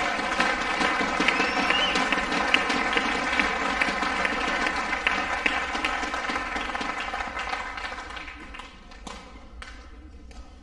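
Spectators applauding after a point is won in a badminton match. The clapping fades away over the last few seconds, and a couple of light knocks come near the end.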